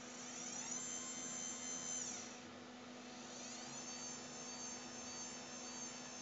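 Windshield wiper motor driven as a servo by an H-bridge MOSFET controller, swinging its crank to a new position on command: a high whine that rises as it speeds up, holds, drops away about two seconds in, then rises again about three seconds in. A steady low hum runs underneath.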